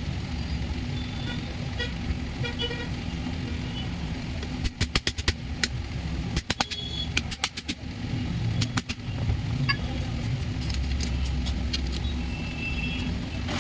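Clusters of sharp clicks or knocks, several quick strikes at a time between about five and nine seconds in, over a steady low hum of vehicle traffic with a few short horn toots.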